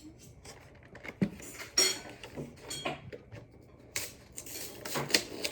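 Pokémon card packaging being handled and opened by hand: irregular crinkling and rustling with small clicks, in two bouts about a second apart.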